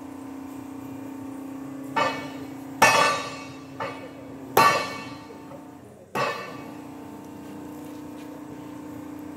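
Several loud, sharp metal clanks, each ringing on briefly, over a steady low machine hum in a quilting-machine workshop. Four strong clanks come in the first two-thirds, then only the hum remains.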